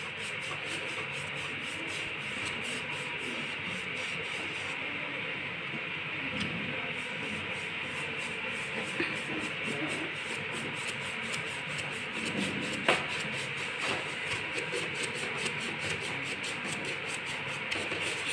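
Stiff distressing brush scrubbing dark chalk wax into a painted MDF panel: a steady dry rubbing made of quick, repeated back-and-forth strokes. There is one light knock about thirteen seconds in.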